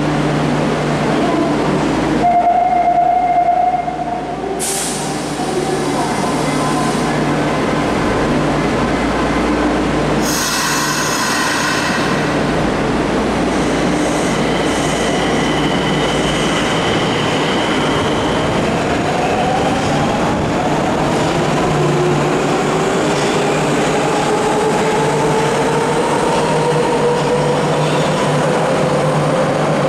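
Nagoya Municipal Subway 2000 series train standing at the platform with its equipment running, with two short hissing bursts early on. From about halfway, it pulls away with the traction motors' whine rising steadily in pitch as it accelerates.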